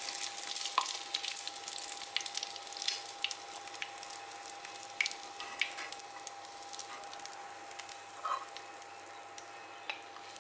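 Hot vegetable oil in a small wok sizzling and crackling with scattered sharp pops from deep-frying a crispy fried egg. The crackle grows sparser and quieter toward the end, over a faint steady tone.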